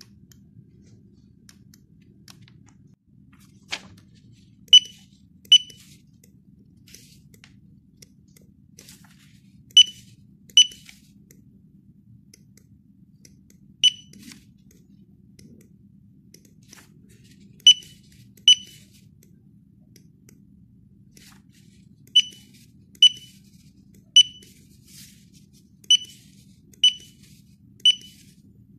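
Handheld barcode scanner giving short, high good-read beeps, about thirteen of them and often in pairs under a second apart, each marking a barcode decoded. A single sharp click comes just before the first beep, and a faint steady low hum sits underneath.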